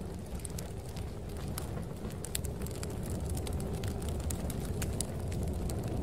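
Fire crackling, with irregular sharp pops and snaps, over a steady low rumble of snowstorm wind.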